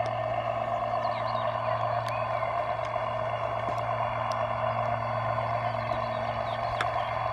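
Steady, unchanging hum of a 1:16 RC model's motor running, with a few faint clicks.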